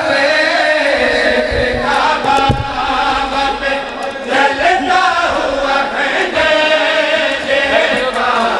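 Male reciters chanting an Urdu noha, a Shia mourning lament, through a loudspeaker in long, gliding sung lines, with mourners' voices joining in.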